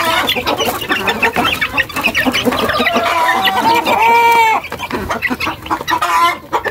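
A flock of young chickens calling over one another in many short overlapping calls as they crowd the keeper at feeding time. One longer, clearer call stands out about four seconds in.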